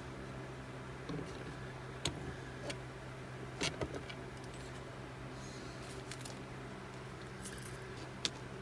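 A few light clicks and taps as a bamboo arrow shaft and a feather are handled on a workbench, over a steady low hum. The clicks come about two seconds in, a small cluster near four seconds, and one sharp click near the end.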